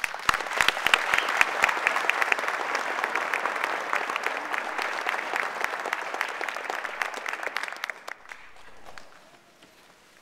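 Audience applause that starts suddenly, holds steady, then dies away about eight to nine seconds in.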